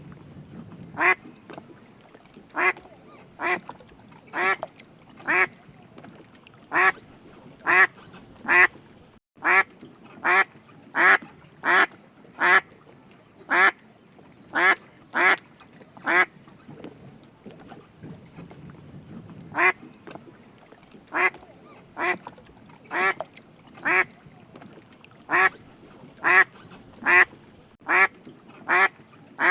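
A duck quacking repeatedly in short, loud single quacks about a second apart, with a pause of a few seconds past the middle.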